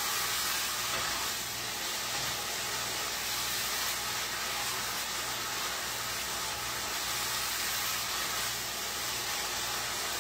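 Ground taco meat sizzling in a pot on an electric stove, a steady hiss as its juices cook off.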